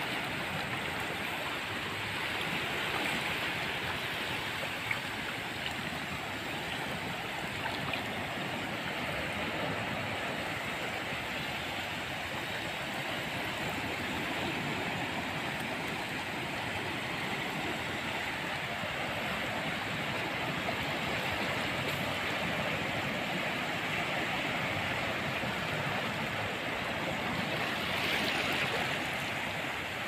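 Sea waves breaking and washing up a beach: a continuous rushing surf, swelling slightly near the end.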